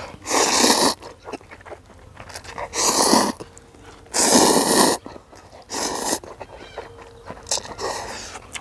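Spicy instant ramen noodles slurped loudly three times, each slurp under a second, followed by softer eating sounds.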